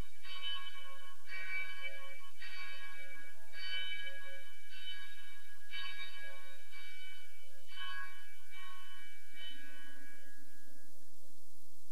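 Church bell ringing before a service, about one stroke a second, each stroke ringing on. The strokes weaken and die away near the end as the ringing stops.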